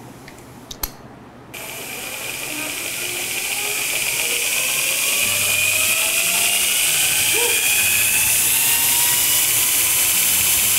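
VEVOR 2x82 inch belt grinder with its 2 hp motor on a variable-frequency drive switched on about a second and a half in, spinning up with a whine that rises steadily in pitch for several seconds as the drive ramps the speed, then running steady with the hiss of the belt over its wheels. A single sharp click comes just before it starts.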